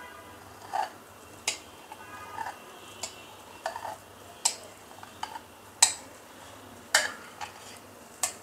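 Metal spoon clinking and scraping against glass as thick mango pulp is scooped from a glass bowl into a glass pitcher, with sharp, irregular clinks about once a second.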